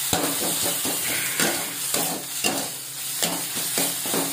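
A spatula scraping and stirring onion paste around an aluminium kadai as it sizzles in hot oil, in a quick, uneven run of scrapes. The paste is frying down to the point where the oil separates from it.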